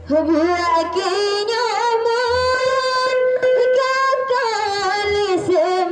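A woman singing a rudat song into a microphone. Her voice climbs into one long, ornamented held note with vibrato, then slides down near the end. Two soft low drum beats sound underneath.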